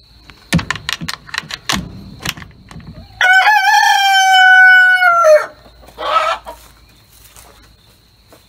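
A rooster crows once, a single held call about two seconds long that drops in pitch at the end, after a few sharp clicks and knocks from the coop door and its metal barrel-bolt latch. A shorter, rougher call follows about a second later, over steady cricket chirping.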